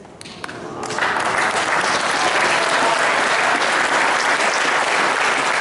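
Spectators applauding: a few scattered claps, then full, steady applause from about a second in.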